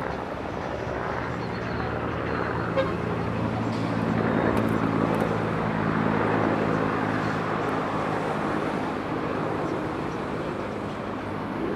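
An engine humming steadily over outdoor street noise, growing louder in the middle and easing off near the end.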